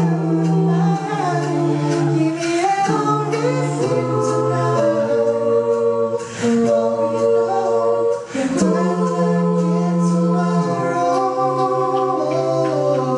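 Mixed male and female a cappella group singing into microphones in close harmony, holding long chords that change every second or two. The voices break off briefly twice, about six and eight and a half seconds in.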